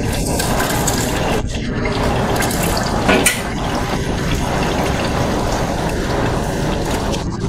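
Running water, a steady splashing noise, with a brief louder noise about three seconds in.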